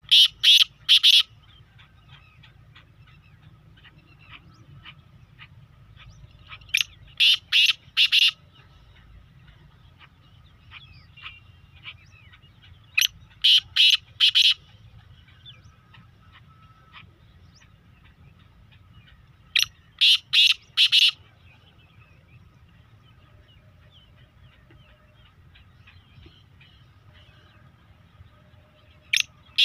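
A bird giving loud, harsh calls in groups of four or five, the groups repeating about every six to seven seconds, with a pause near the end before the last group. Fainter chirps and a low hum lie beneath.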